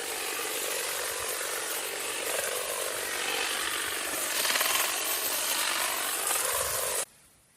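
A power tool running and cutting, a harsh steady noise that stops abruptly about seven seconds in.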